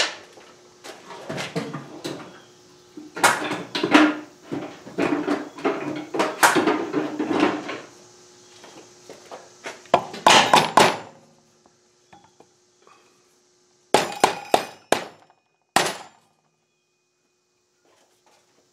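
A rubber mallet strikes repeatedly at a motorcycle rear brake disc to knock it loose from the wheel hub, in clusters of blows. A few sharp metallic clinks come near the end.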